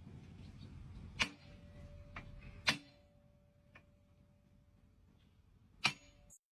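Three sharp knocks over a low rumble, the rumble fading out about halfway through; a faint steady tone hums under the later knocks.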